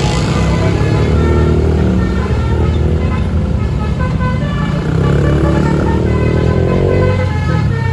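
A bus's multi-tone telolet horn playing a tune of stepped notes, over the deep rumble of the bus engine.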